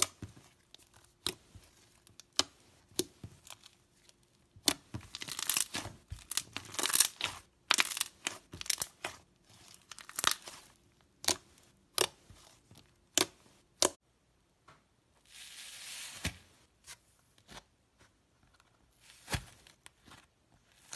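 Hands pressing, poking and stretching slime: a run of sharp sticky pops and clicks, with denser stretches of crackling in the middle and a short hiss a little past halfway.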